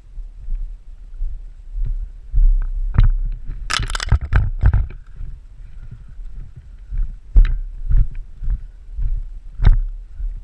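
Irregular low thumps and rubbing from a worn camera being jostled as its wearer moves, with scattered sharp clicks and a quick cluster of clicks about four seconds in.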